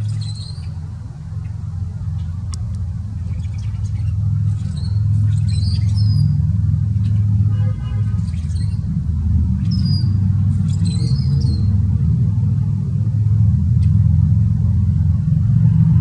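Rusty blackbird giving short, high, squeaky, creaky notes, about half a dozen, mostly bunched in the middle, over a steady low rumble that is louder than the bird.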